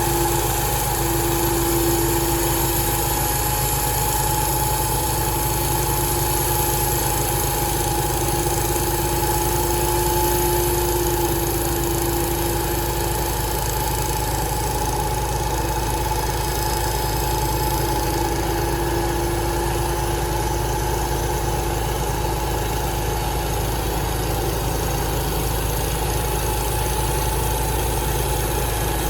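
Sawmill machinery running steadily: an even engine drone with a steady high whine held over it.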